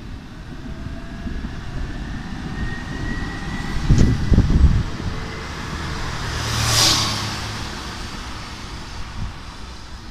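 Alstom Citadis 302 tram passing by: its running noise swells as it approaches, peaks with a hiss as it goes past and fades as it moves away, with a faint high whine during the approach. Heavy low thumps about four seconds in are the loudest moment.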